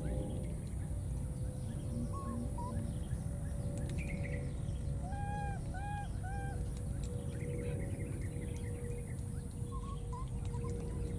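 Outdoor ambience of small birds chirping, with a run of three clear, evenly spaced arched calls about halfway through, over a steady low rumble.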